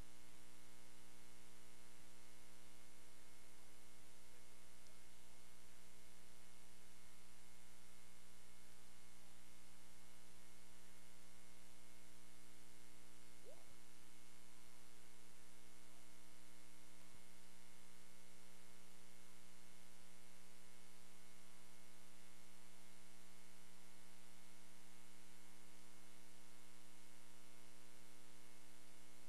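Steady electrical mains hum with a buzz of many steady tones over hiss. It is recording noise with no game sound audible, and it stays unchanged throughout.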